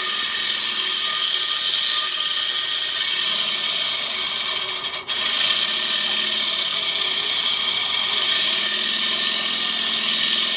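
Small homemade model dynamo running as an electric motor, its brass shim-stock brushes rubbing on the commutator: a steady buzzy whir with a high hiss. It falters briefly about five seconds in, then picks up again.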